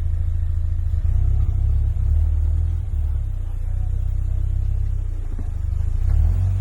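Off-road vehicle engine running at low revs, a deep steady rumble that swells slightly now and then as the vehicle crawls along the trail.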